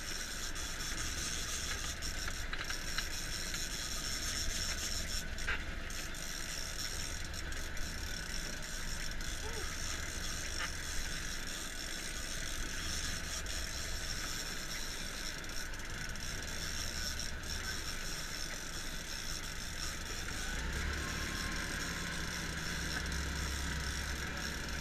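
Big-game fishing reel being cranked, its gears whirring and clicking as a hooked fish is reeled in. Under it, a boat's engine runs steadily with wind and water noise, and the engine gets louder near the end.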